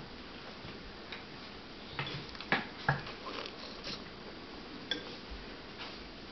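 Metal spoon clicking against a ceramic cereal bowl as cereal is scooped up, a few sharp clinks about two to three seconds in and lighter ones after.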